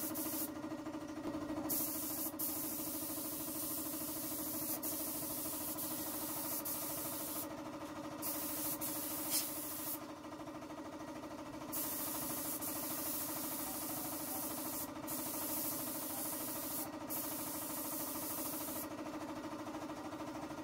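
Gravity-feed paint spray gun hissing in long bursts as the trigger is pulled and released, with a steady motor hum underneath.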